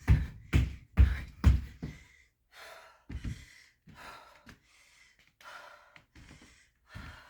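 Feet landing from repeated jumps on the floor, a heavy thud a little over twice a second, stopping about two seconds in. Then hard, breathy panting and gasps of an exerciser catching breath.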